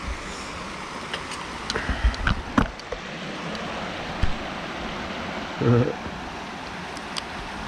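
Small creek's running water, a steady rushing hiss, with a few light clicks and a short voice about six seconds in.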